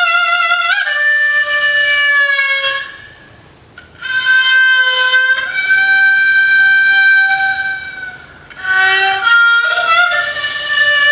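Haegeum, the Korean two-string bowed fiddle, played solo in long held notes with sliding pitch bends. After about three seconds the sound dies down for roughly a second. Then comes a long steady note and a few shorter, sliding notes.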